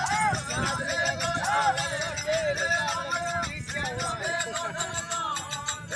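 Rajasthani folk bhajan music: a wavering, ornamented melody line over a steady low drum beat.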